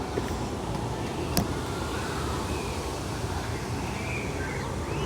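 Steady outdoor background rumble of distant traffic, with a single sharp click about a second and a half in and a few faint chirps near the end.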